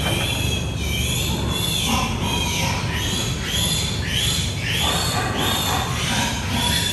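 Piglets squealing over and over, many short high calls that rise and fall and overlap, a few each second, over a steady low rumble.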